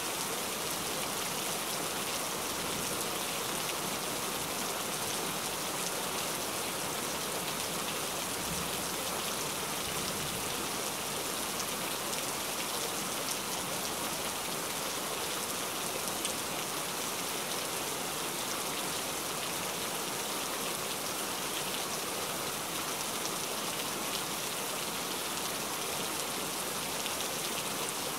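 Steady rain falling: an even hiss of many small drops that holds at the same level throughout.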